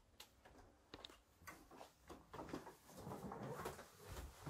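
Near silence broken by faint scattered clicks and soft knocks, with a soft rustle in the second half: handling noise from a handheld camera being carried through a small wooden cabin.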